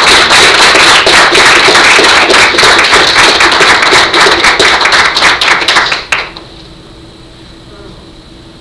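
Loud applause from a small group of people clapping, dying away quickly about six seconds in.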